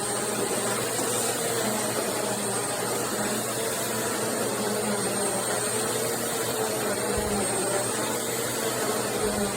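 Bissell CleanView Swivel Pet upright vacuum cleaner running steadily, a constant whooshing hum with a thin high whine.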